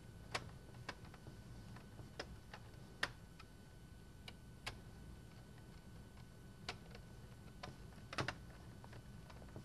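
Screwdriver turning the screws of a metal sectional frame's corner plate: faint, irregular clicks a second or so apart, with a quick cluster of clicks near the end.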